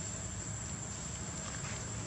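Steady high insect drone, with a few faint light rustles near the end from a young macaque's footsteps on dry leaves and stone.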